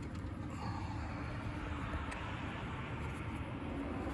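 Steady background hum and hiss, with no continuity beep from the multimeter: the kill switch does not short this terminal to ground.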